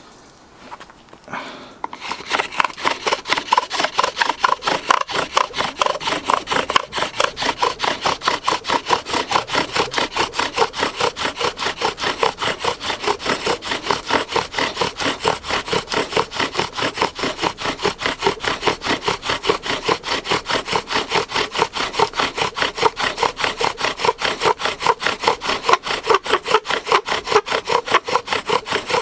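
Bow drill being worked: a wooden spindle spun back and forth by a bow, rubbing in a wooden hearth board with its top turning in a carbon-steel bearing block, in a fast, even rhythm of strokes that starts about two seconds in. This is the burning-in of a starter hole in the hearth board.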